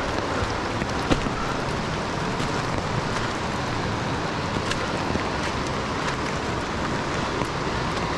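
Footsteps of a person walking on a wet trail of leaves and rock, heard as scattered soft clicks over a steady rushing noise.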